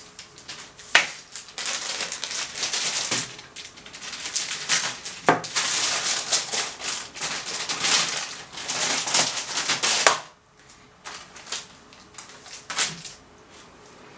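Plastic packaging rustling and crinkling as cables and accessories are handled, with a few sharp clicks. It stops abruptly about ten seconds in, leaving only faint handling sounds.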